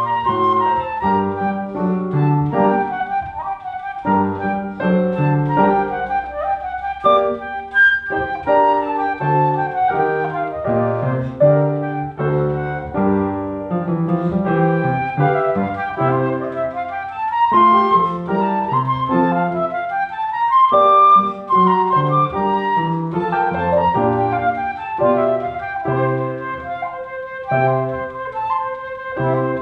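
Concert flute playing a solo line of quick notes, with two fast runs climbing in pitch around the middle, over a lower piano accompaniment.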